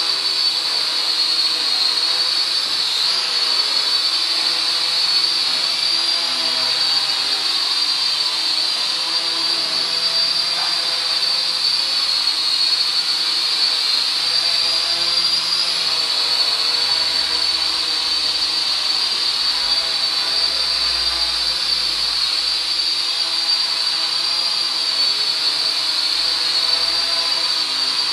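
Zero-X Pulse mini quadcopter hovering, its small electric motors and propellers giving a steady high-pitched whine. The pitch wavers slightly as the drone is steered.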